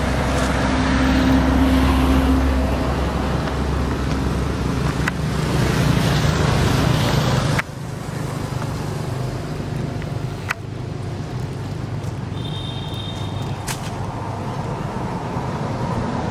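Steady outdoor background noise, a low rumble with a hiss, broken by abrupt cuts about halfway through and again a few seconds later. A brief high double tone sounds about three quarters of the way in.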